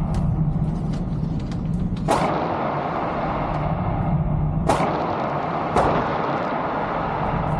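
Pistol shots at a shooting range: three loud sharp shots, about two and a half seconds apart and then a second apart, with fainter pops between them, over a steady low background rumble.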